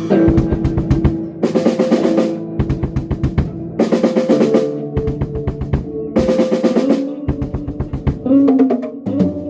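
Rock band playing an instrumental passage: busy, rapid drum-kit hits on snare and bass drum under held guitar chords, with cymbal crashes about every two and a half seconds.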